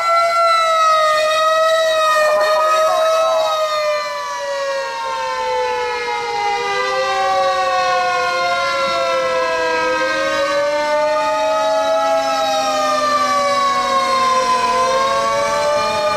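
Fire engine sirens sounding together, loud and continuous. One siren wails slowly up and down while another's pitch slides steadily lower from about four seconds in.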